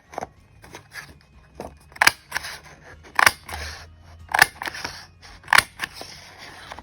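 Square craft hole punch pressed down four times, about a second apart, each press ending in a sharp snap as it cuts through patterned paper, with lighter clicks and paper handling in between.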